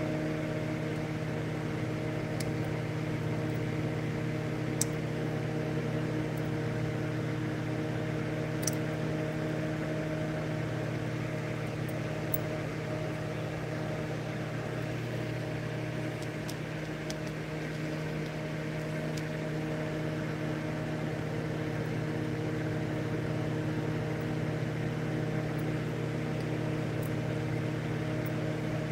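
A steady electrical hum with a light fan-like hiss, unchanging throughout, with a couple of faint ticks.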